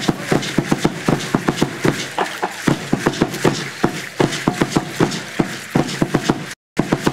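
Drumming for Aztec dancing: fast, steady drum strikes at about five a second. The audio cuts out briefly near the end.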